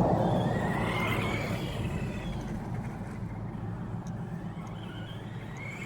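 Radio-controlled car running, its motor whining and rising and falling in pitch, growing fainter over the first few seconds.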